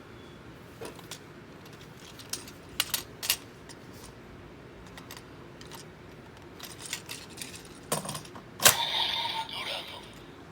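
Hard plastic clicks and taps from a Kamen Rider Build DX Evol Dragon full bottle toy being handled, its movable parts snapping, a few at a time, with a louder click near the end followed by a brief rustling clatter.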